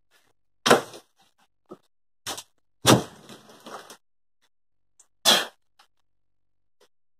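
Scrap wood from a shed demolition being thrown down and pried loose: four separate knocks of boards hitting boards, the loudest about three seconds in, with faint scraping and rattling between them.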